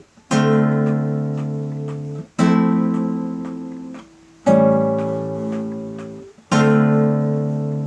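Acoustic guitar strumming four chords about two seconds apart, each struck once and left to ring and fade before the next.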